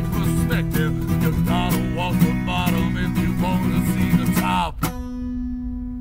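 Acoustic guitar strummed briskly, ending about five seconds in with a last sharp strum that is left ringing.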